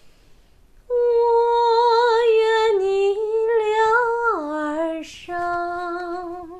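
A woman humming as a singing demonstration: a long held tone that steps down in pitch twice, then after a short break one last held note. She is modelling the hum resonance found with a yawn-open throat.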